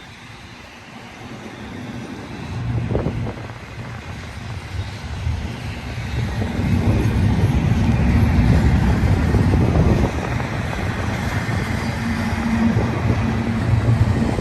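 Diesel locomotives of a long freight train approaching and passing. The low engine sound builds over the first six seconds or so and then holds steady and loud.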